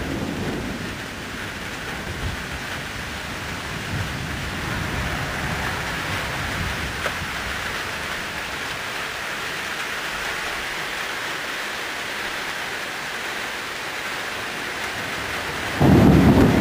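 Steady rain falling during a thunderstorm, with low thunder rumbling away over the first couple of seconds. Near the end a sudden loud, low rumble breaks in.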